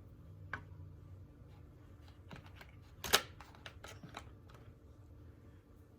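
Small soldering-kit parts and their packaging being handled: light scattered clicks and taps, with one sharper click about three seconds in.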